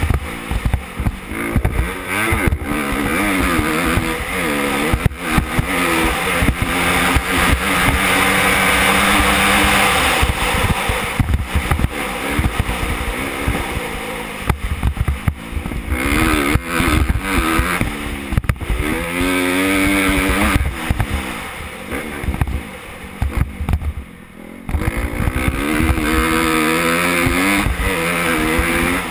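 2014 Honda CRF250R dirt bike's single-cylinder four-stroke engine being ridden hard, revving up and falling back over and over as the throttle is worked through the gears. It briefly drops off about 24 seconds in, when the throttle is shut.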